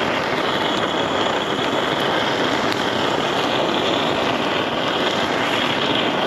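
Handheld gas torch burning with a steady rushing hiss as it sears the cheese topping.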